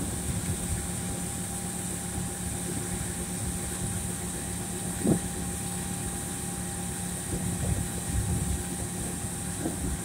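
John Deere S770 combine running steadily while its unloading auger pours soybeans into a truck: an even mechanical drone with a high hiss over it. A brief click about five seconds in.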